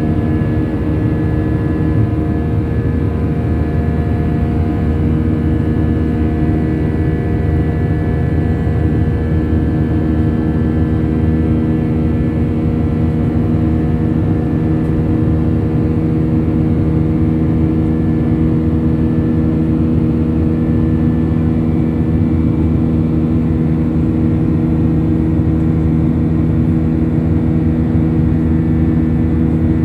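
Airbus A319 jet engines and airflow heard from inside the cabin: a steady, loud rushing drone with a constant multi-tone hum.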